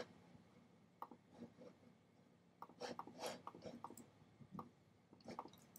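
Near silence: room tone with a few faint, short clicks scattered through.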